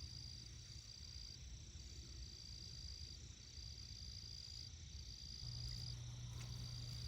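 Insects trilling faintly in a high, steady pitch, in trills about a second long with short breaks between them. A low steady hum comes in about five seconds in.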